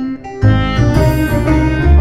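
Instrumental background music with a bass line and sustained melody notes; a new phrase comes in loudly about half a second in.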